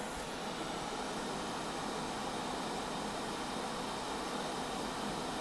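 Steady fan-like hiss with a faint low hum, even throughout: the running blower of bench equipment at the soldering station.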